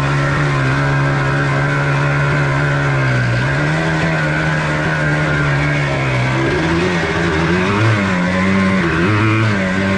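1994 Yamaha Blaster 200's single-cylinder two-stroke engine running under way. It holds a steady note, climbs in pitch about three seconds in and again past six seconds, then rises and dips several times near the end.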